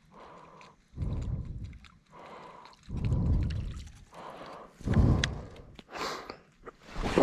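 Heavy breathing close to the microphone, one loud breath about every two seconds, with a few light clicks from handling the baitcaster reel and a louder rush near the end.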